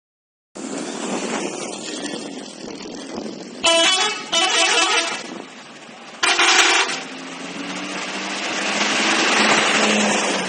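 Indonesian bus telolet horns sounding three short multi-tone blasts, two close together about four seconds in and one more about six seconds in, over a steady background of street noise. A vehicle engine hums and swells toward the end.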